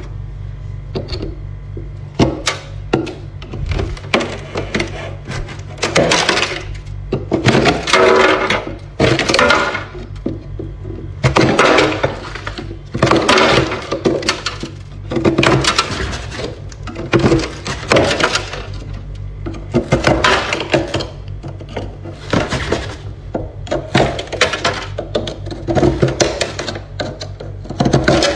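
Frost and ice being scraped and chipped off the inside walls of a freezer compartment with a hand tool: repeated crunching, cracking scrapes, roughly one every one to two seconds. A steady low hum runs underneath.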